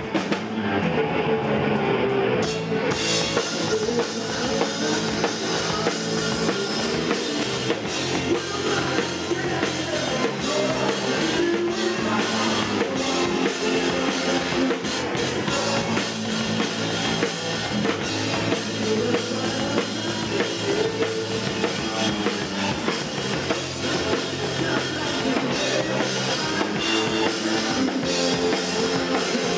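Live rock band playing loudly: distorted electric guitars over a drum kit and bass. The sound gets fuller and brighter about three seconds in, as the cymbals and full band come in.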